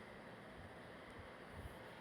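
Faint, steady sizzle of ginger, garlic, shallots and curry leaves frying in coconut oil in a kadai, with a soft knock about 1.6 seconds in.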